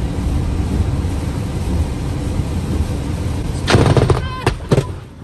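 Steady road and rain noise inside a moving car, then, about three and a half seconds in, a lightning strike close ahead gives a loud, sharp thunder crack, followed by a few more bangs over the next second.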